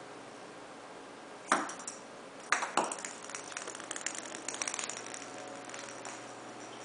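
Hard plastic cat ball striking and skittering across a wood floor: a sharp knock about a second and a half in, two more a second later, then a quick run of small clicks for a couple of seconds as it rolls and bounces.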